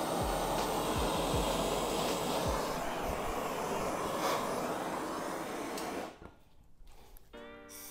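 Handheld gas soldering torch flame hissing steadily while heating a copper pipe joint for sweat-soldering, then shut off or pulled away about six seconds in.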